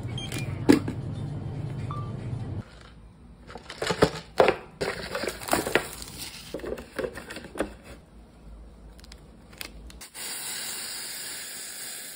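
Handling of a cup-noodle package: crinkles of plastic and paper and sharp taps and clicks, after a low steady hum. About ten seconds in, a steady pouring hiss begins as water from a kettle runs into the noodle cup.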